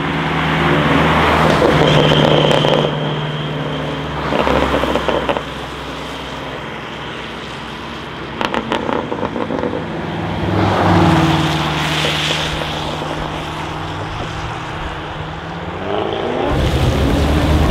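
Performance cars driving past one after another, their engines surging in several louder bursts, with a quick run of exhaust crackles about halfway through. The cars include a Mercedes-AMG A45 S and an Audi RSQ8, and near the end an engine note rises in pitch as a car pulls away.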